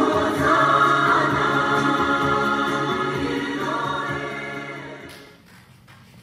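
Choir singing with long held notes, fading out about five seconds in.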